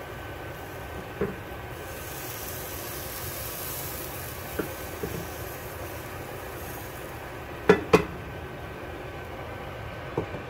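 Bánh xèo batter cooking in a frying pan over a gas burner, with a steady sizzle and hiss. A few light taps, then two sharp metal-and-glass clanks in quick succession about three-quarters of the way through, as the pan and its glass lid are handled.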